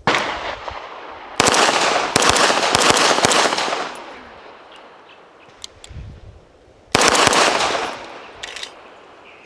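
Pistol shots on an outdoor range: a single shot, then a rapid string of shots about a second in, and another quick string near seven seconds, each ringing off afterwards.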